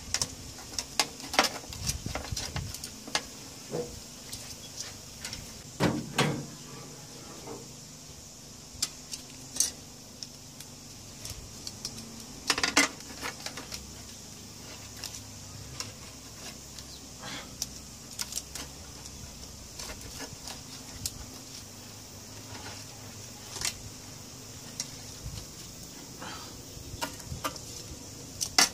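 Metal tongs clinking and scraping against a wire smoker rack and a metal roasting tray, in scattered clicks and short clatters, as smoked salmon frames are lifted off the rack.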